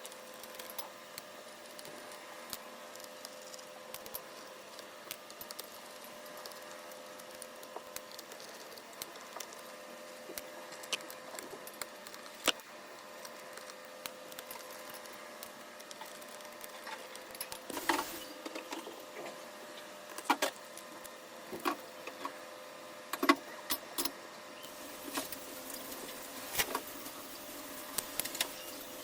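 Small clicks, taps and rattles of hands and tools working on an Acer Nitro 5 laptop during a RAM upgrade, over a faint steady hum. The clicks come more often and louder in the second half.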